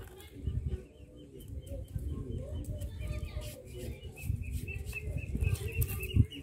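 Irregular low knocks and rumbling as the heavy upper stone of a hand-turned stone grinding mill is lifted off and handled, with small birds chirping over and over from about halfway through.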